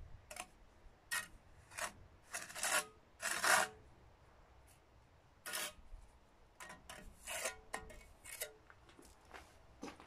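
Steel brick trowel scraping along concrete blocks in a series of short, irregular strokes, the loudest about three seconds in.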